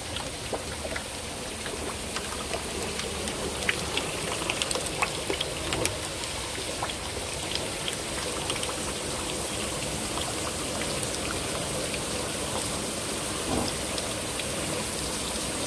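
Spirulina culture water splashing and trickling as it runs through a spirulina harvesting machine and down its steel trough: a steady rain-like patter of water with scattered drips and splashes, busiest a few seconds in.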